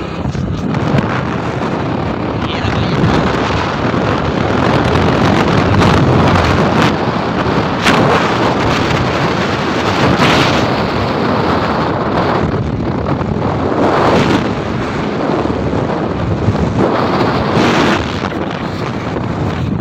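Wind buffeting the phone's microphone on a moving two-wheeler, a loud rushing noise that rises and falls, with the ride's engine and road noise underneath.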